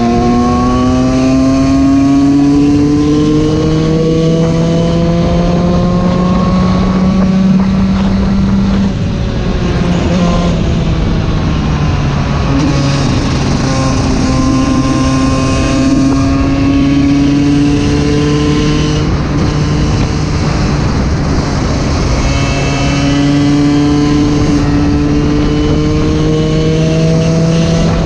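Yamaha YZ125 two-stroke motocross bike engine running under load on the road. The pitch climbs slowly through long pulls and drops back a few times in between.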